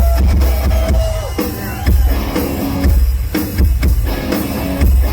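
Live rock band playing loudly, with the drum kit's bass drum and snare hits and a heavy, pulsing bass to the fore.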